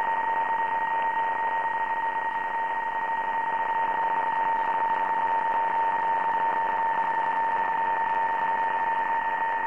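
Received audio from an LD-1TR software-defined transceiver tuned to the 20-metre PSK-31 frequency: a steady tone near 1 kHz, a PSK-31 signal being received and decoded, over even band hiss, with a fainter second tone higher up.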